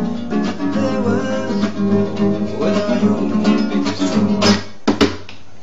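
Nylon-string classical guitar played with strummed chords and plucked notes, stopping with a few sharp strokes about four and a half to five seconds in.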